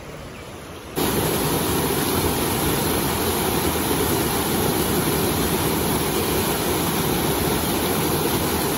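Small waterfall: stream water pouring and splashing over boulders in a loud, steady rush. It starts suddenly about a second in, after a second of the quieter flow of a shallow rocky stream.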